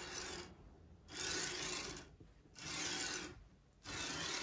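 Schneeberger 25 mm flanged, slightly preloaded linear guide carriage slid back and forth by hand along its steel rail. The recirculating balls give a smooth rolling hiss on each stroke: about four strokes, each just under a second, with short pauses between.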